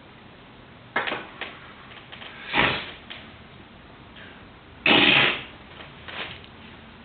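A few sharp clicks, then louder knocks and scuffs, the loudest a short noisy burst about five seconds in, like handling noise close to the microphone.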